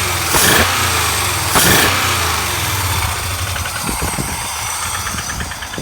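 A 2003 Dodge Dakota's engine, started cold with its accessory belt off, is blipped twice near the start, each rev falling back, then settles to a steady idle. The owner takes the running for a little blow-by but thinks the engine will run fine.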